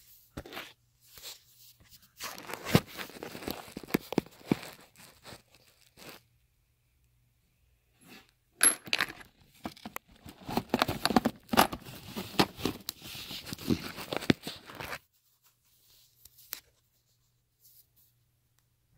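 Handling noise inside a fabric tool bag: rustling and scraping with sharp clicks and knocks as things are moved about among the pockets and plastic hardware boxes, in two spells of a few seconds each.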